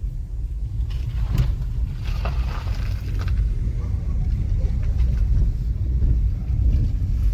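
Steady low rumble, with a few faint short sounds over it.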